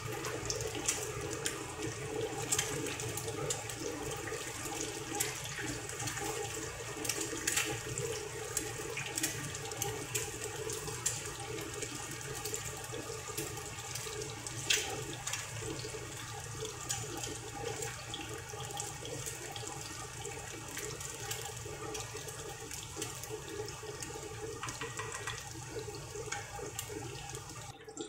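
Eggs frying in hot oil in a pan: a steady sizzle with scattered crackling pops, and a wooden spatula scraping and pushing in the pan now and then.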